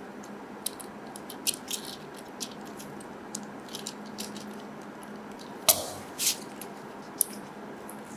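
Fingers pressing on and handling the hard plastic body of a Tamiya Mini 4WD car, giving scattered light clicks and scratches, with two louder sharp taps a little past halfway.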